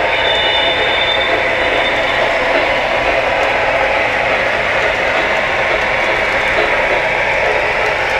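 Lionel O scale model train running on three-rail track, a steady rolling clatter of wheels and cars. A thin high squeal sounds for about the first two seconds.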